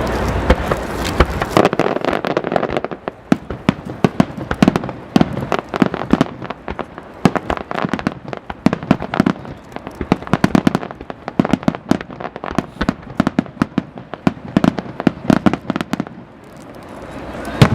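Aerial fireworks display: dense volleys of sharp crackling pops that swell and fade in clusters, with a swelling rush and a few loud bangs at the very end.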